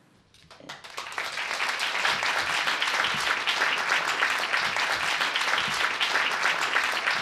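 An audience applauding. The clapping starts faintly about half a second in, swells over the next second, then holds steady as a dense patter of many hands.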